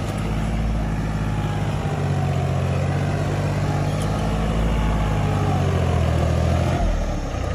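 John Deere tractor's diesel engine running steadily under load while it drags a spring-tine cultivator through hard, cloddy soil; the engine note eases slightly near the end.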